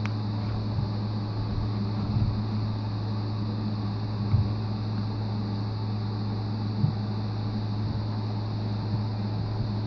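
Steady low mechanical hum, with a few short soft squishes from grey putty slime being kneaded by hand, about two, four and seven seconds in.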